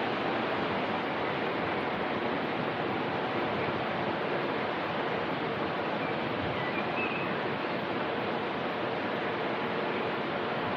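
Steady, even rushing noise with no distinct events, holding one level throughout.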